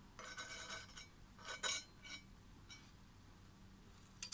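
Light metallic scraping, tapping and clinking as a steel welding rod pries a strip of slag off a stick-welded steel plate. There are three clusters of clinks in the first two seconds, the loudest about a second and a half in, and a single sharp clink with a short ring near the end.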